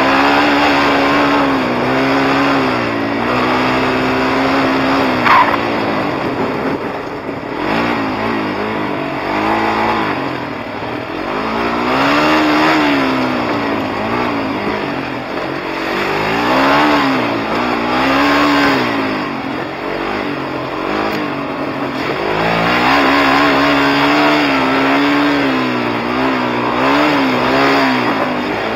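Sport quad (ATV) engine revving up and down while being ridden, its pitch rising and falling every second or two with throttle and gear changes. A brief sharp knock about five seconds in.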